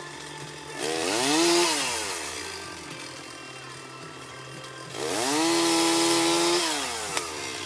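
Chainsaw engine idling and revved twice: a short rev that rises and drops back about a second in, then a longer rev from about five seconds in, held briefly at full speed before falling back to idle.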